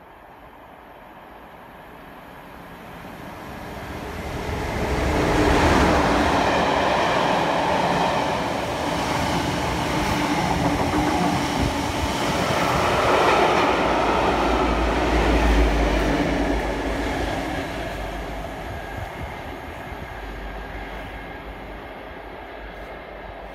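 Class 47 diesel-electric locomotive hauling a Class 442 electric multiple unit, with a Class 57 diesel locomotive on the rear, running through at speed. The engine sound grows as the train approaches and is loudest about six seconds in. It stays loud while the coaches pass, with a second, deeper swell of engine rumble near the middle as the rear locomotive goes by, then fades away.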